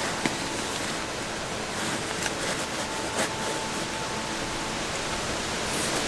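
Strong wind blowing steadily against and around a tent, heard from inside, with a few brief rustles of a nylon stuff sack as a sleeping bag is packed into it and its drawstring pulled.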